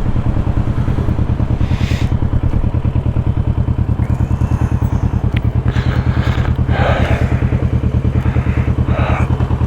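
Motorcycle engine idling with an even, lumpy pulse, with a few short clatters over it.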